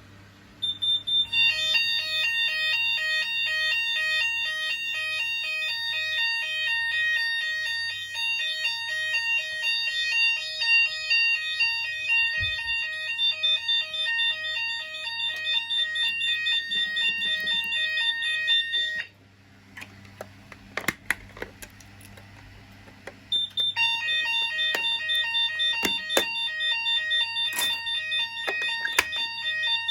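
Hochiki fire alarm sounder going off with a loud, high-pitched, rapidly alternating two-tone signal. It cuts out about two-thirds of the way through for a few seconds, leaving some clicks and knocks, then starts up again.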